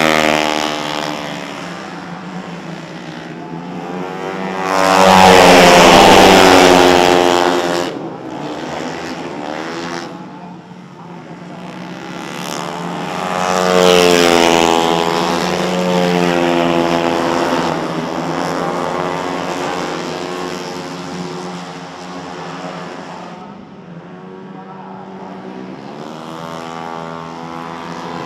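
Four-stroke Vespa automatic race scooters passing one after another at high revs, their engine pitch rising and falling through each pass. The loudest pass comes about five seconds in and lasts a few seconds, with another about fourteen seconds in.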